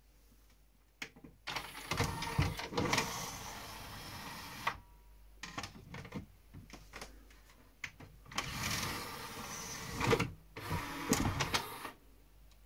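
Pioneer CLD-2950 LaserDisc player's disc-loading mechanism at work: a small motor and gear train whirring in three runs, with clicks and clunks between them, as the disc is drawn in and set under the clamp.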